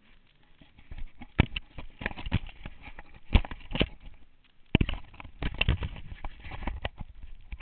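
Irregular knocks and rattles of a mounted action camera jolting against its mount over rough ground, some sharp and loud, starting about a second in. No steady engine note stands out.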